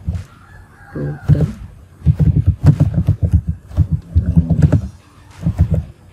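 Computer keyboard typing: runs of rapid key clicks with short pauses between them.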